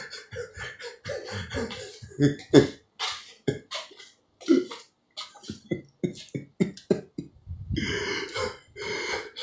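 A man beatboxing: a string of short mouth pops and clicks at an uneven pace, with brief pauses and a couple of longer breathy bursts near the end.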